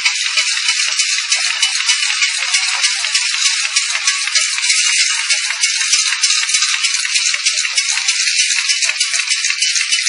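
Self-adhesive labeling machine running, a steady dense rattling clatter that goes on without a break.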